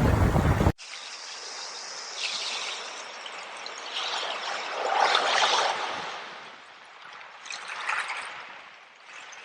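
Loud wind-blown surf noise cuts off abruptly under a second in. It gives way to water trickling and splashing in a small stream, swelling and easing in a few surges.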